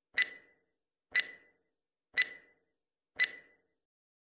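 Countdown-timer sound effect: four sharp clock ticks, one a second, each with a short metallic ring, counting down the seconds left to answer.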